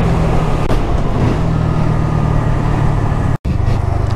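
Honda MSX125SF (Grom) 125 cc single-cylinder four-stroke engine running at a steady cruise, with wind rushing over the microphone. The sound cuts out for an instant about three and a half seconds in.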